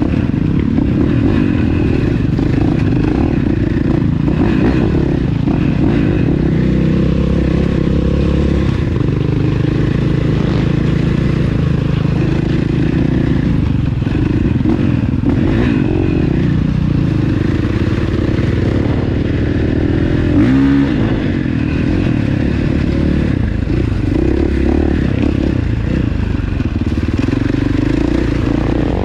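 ATV engine running under load on a rocky trail, its pitch rising and falling as the throttle changes, with a brief rev about two-thirds of the way through and occasional clattering.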